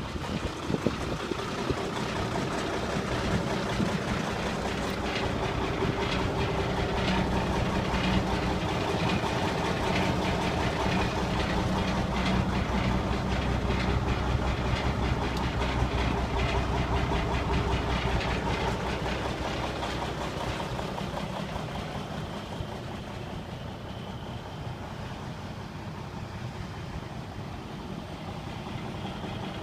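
Cummins N14 inline-six diesel of a Kenworth T800 dump truck idling steadily.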